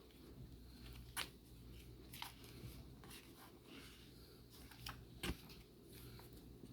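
Pages of a book being turned by hand: a few short paper rustles and flicks, with faint rubbing of paper between them.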